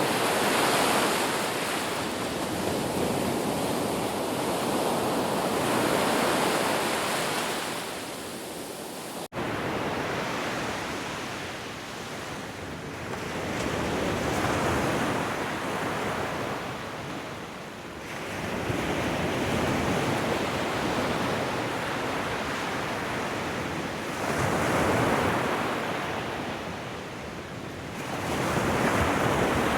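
Ocean surf, a wash of waves that swells and ebbs roughly every five seconds. A split-second dropout about nine seconds in.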